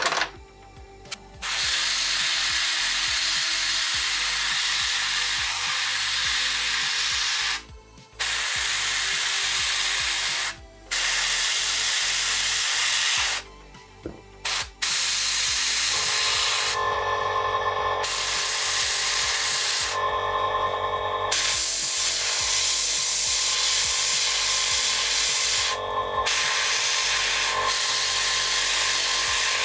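Airbrush spraying thinned grey acrylic paint onto a miniature: an even hiss of air and paint in long trigger-held bursts, broken by several brief pauses.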